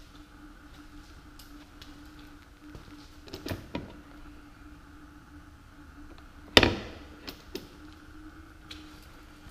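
Fuel filler door of a 2016 Chevrolet Suburban clicking as it is popped open, then shut about three seconds later with one loud, sharp snap and a short ring, followed by two light clicks, over a steady faint hum.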